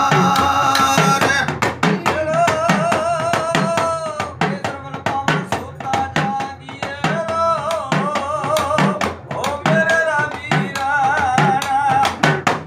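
Rajasthani-style folk bhajan: male voices singing a wavering devotional melody over a deru, a double-headed drum struck with a stick, and a small hand drum keeping a quick, steady beat.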